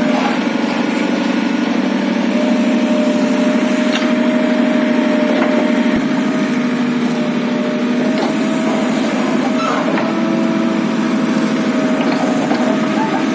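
A small engine running steadily at a constant speed, with a few faint ticks and knocks over it.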